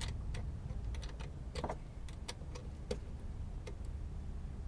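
Raindrops ticking and tapping irregularly on a hard surface, over a steady low rumble of wind on the microphone.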